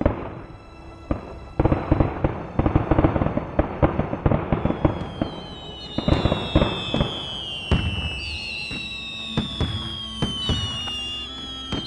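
Fireworks going off: a dense run of sharp cracks and pops starting a couple of seconds in. From about halfway through come several high whistles, each slowly falling in pitch, while the cracking thins out.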